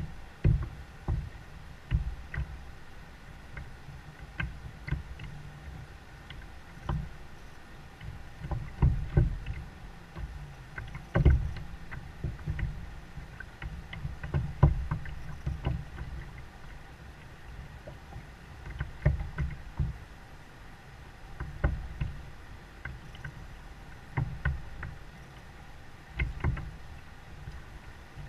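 Irregular dull knocks and thumps carried through the plastic hull of a Jackson Kayak Coosa HD as a standing angler shifts his weight and feet on the deck, every second or two, some with a sharper click.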